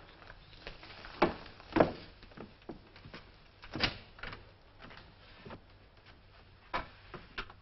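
A front door being unlocked and opened, with footsteps: a string of separate clicks and knocks, the loudest about two seconds in.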